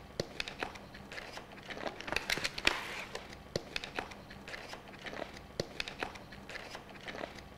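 Faint, irregular crinkling and light clicks of handling noise over a faint steady low hum.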